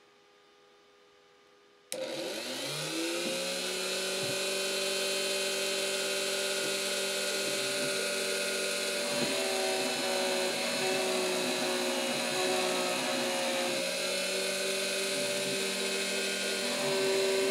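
After about two seconds of near silence, a CNC router's rotary-tool spindle switches on about two seconds in, rises quickly in pitch to speed, then runs with a steady high whine as the bit engraves the wood.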